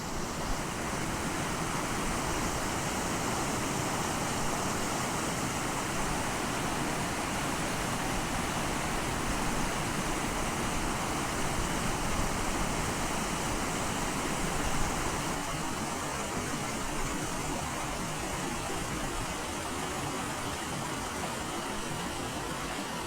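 Steady rush of water from a waterfall and its river, an even noise that holds with no break.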